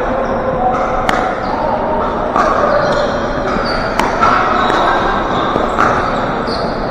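Pickleball paddles striking the plastic ball during a rally: a few sharp pocks several seconds apart, the clearest about a second in and about four seconds in, over the steady din of play on neighbouring courts in a large gym.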